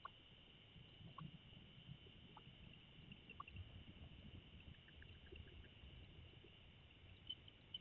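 Near silence: faint steady background hiss with a thin high-pitched hum and a few faint scattered clicks.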